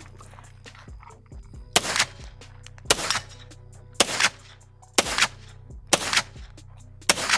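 Six single gunshots from a pistol-caliber carbine, fired slowly at about one a second, each with a short echo; the gun runs empty after the sixth.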